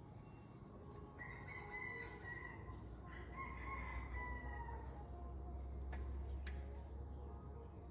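An animal's long drawn-out call lasting about three and a half seconds, starting about a second in and sliding slightly down in pitch at its end, followed by a single sharp click a couple of seconds later.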